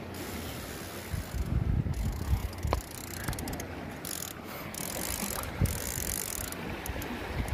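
Fishing reel being wound in, its mechanism clicking and whirring, with wind rumbling on the microphone.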